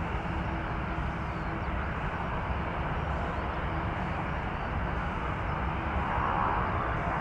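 Distant Airbus A330-300 jet engines (Rolls-Royce Trent 700) running as the airliner turns onto the runway, a steady rumble. About six seconds in it grows a little louder as the engines begin to spool up for takeoff.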